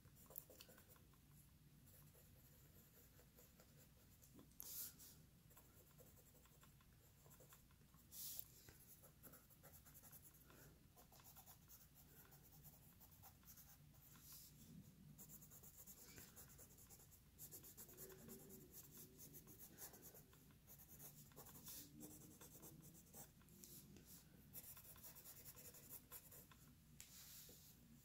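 Faint scratching of a colored pencil shading on coloring-book paper, with two brief sharper scratches about five and eight seconds in and steadier stroking in the second half.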